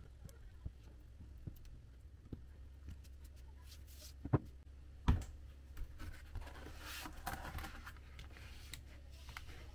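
Cardboard being worked by hand: light scratching and scraping with scattered small clicks, two sharp taps a little before the middle, and a longer stretch of scraping near the end.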